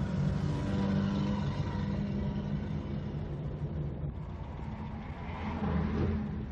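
A motor vehicle's engine running steadily while driving, with a brief swell in level about five to six seconds in.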